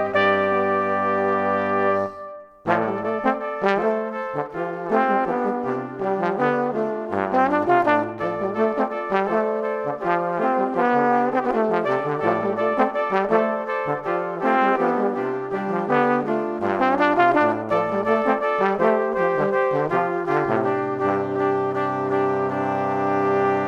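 Instrumental background music led by brass, with a moving bass line and changing chords. It breaks off briefly about two and a half seconds in.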